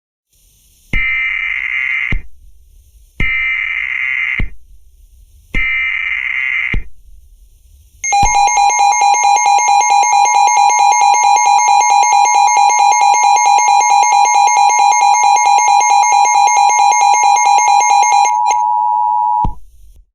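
Emergency Alert System SAME header: three bursts of data tones, each about a second long with a short pause between. Then comes the EAS two-tone attention signal, held steady for about eleven seconds before cutting off, marking the start of a new alert, a severe thunderstorm warning.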